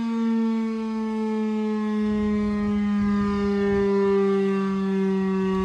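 Sentry STH-10 electromechanical warning siren sounding one steady tone with many overtones, its pitch slowly falling across these seconds.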